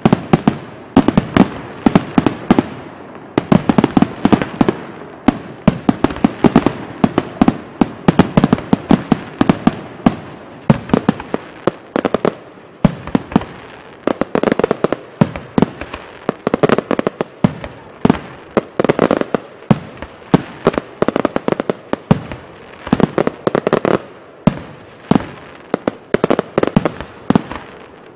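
Fireworks display: aerial shells bursting one after another, a dense run of sharp bangs and crackles, several a second.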